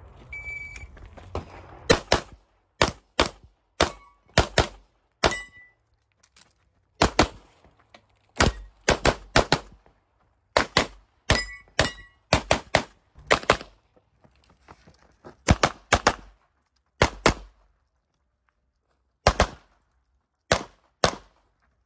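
Handgun shots fired in quick pairs and short strings, with pauses of a second or two between groups. This is the pace of an IPSC competitor shooting a course of fire.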